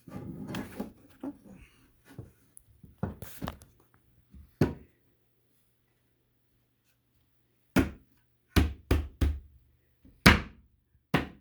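Wooden beehive box parts being knocked together during assembly: some handling and scattered knocks, then a run of sharp knocks about a third of a second apart in the second half.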